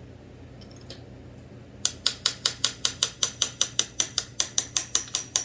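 Steel hammer tapping lightly and rapidly, about five taps a second, on a stuck metal part of a McCulloch chainsaw engine, each tap ringing sharply. The taps start about two seconds in.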